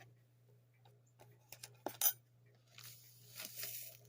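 Metal measuring spoons clicking, with one sharp clink about two seconds in, then a soft rustling hiss as salt is shaken out into the spoon. A low electrical hum runs underneath.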